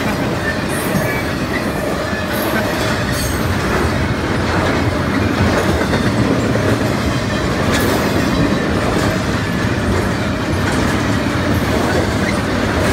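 Double-stack intermodal freight cars rolling steadily past: a continuous noise of steel wheels on rail, with a few brief high-pitched squeaks in the first few seconds and again about eight seconds in.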